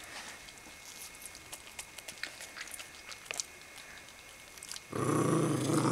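A dog's wet chewing and licking on a slice of watermelon: faint, scattered clicks and smacks. About five seconds in, a much louder, sustained low sound begins.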